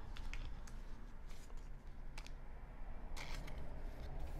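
Baseball trading cards being handled: scattered soft rustles and light ticks as the cards slide and tap against each other in the hands, a little louder about three seconds in.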